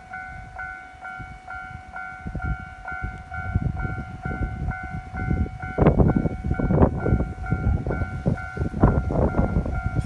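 Japanese railway level-crossing warning bell ringing its electronic 'kan-kan' alarm, about three strokes a second, signalling that a train is due. Under it is low rumbling noise that grows louder about six seconds in.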